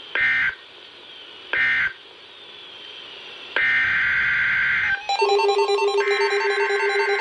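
Emergency Alert System SAME data bursts: two short end-of-message screeches in quick succession, then a longer header burst starting the next alert. From about five seconds in, an electronic, ringtone-like tune with a steady low tone comes in, and another header burst starts over it about a second later.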